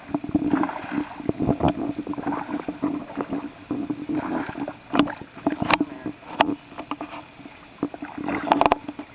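A hooked bass thrashing and splashing at the water's surface on the line, in irregular splashes with a few sharp clicks and a denser burst of splashing near the end.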